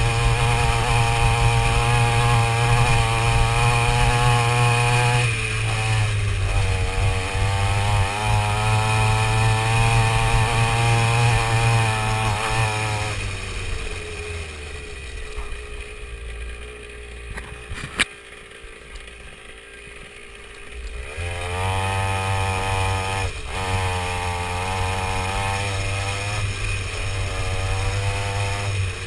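49cc two-stroke mini dirt bike engine running hard, its pitch rising and falling as the throttle is worked. Partway through it drops back to a much quieter low run for several seconds, with one sharp click, then revs up again.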